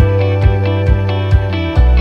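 Background music: guitar-led song with a steady beat, about two beats a second.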